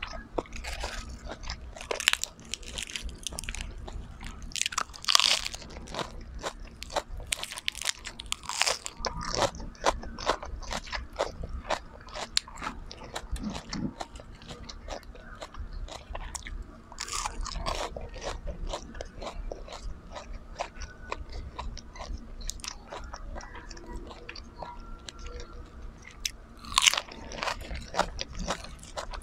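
Close-miked eating: dense crunching and chewing of lettuce-wrapped fried food, with louder crunchy bites every few seconds.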